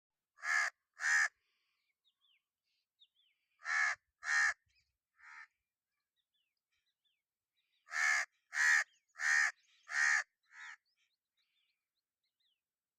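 Crow cawing in short runs of caws: two at the start, two more and a fainter third about four seconds in, then a run of four and a fainter fifth about eight seconds in. Faint small-bird chirps sound in the gaps.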